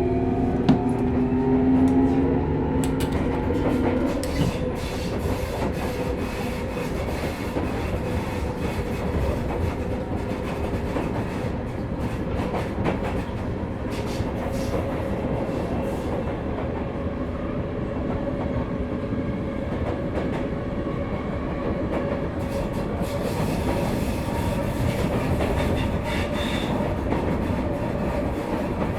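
On-board running sound of a Sotetsu New 7000 series motor car with a Hitachi GTO VVVF inverter: the traction motor whines in a steady tone that rises slowly, over wheel rumble and rail-joint clacks. In the first few seconds several inverter and motor tones shift in pitch as the train accelerates. This car is known for an abnormal motor noise.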